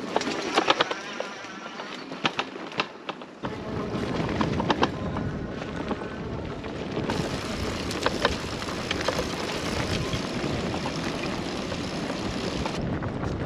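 Loaded Fiido T1 Pro electric bike ridden over a rough grass and dirt track: tyre rumble and wind on the microphone, with sharp knocks and rattles from the bike over bumps. The rumble comes in about three and a half seconds in, after a quieter stretch.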